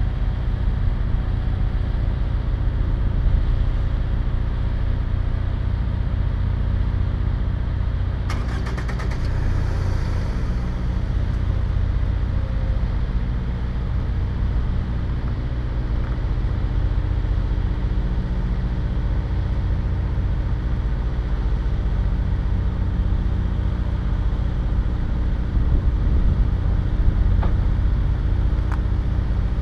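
Car engine idling, a steady low hum. About eight seconds in, a short burst of rapid clicking with a hiss.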